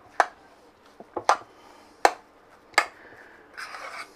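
A utensil knocking and scraping against a glass mixing bowl as thick mashed-potato filling is stirred: four sharp clinks a little under a second apart, then a short scrape near the end.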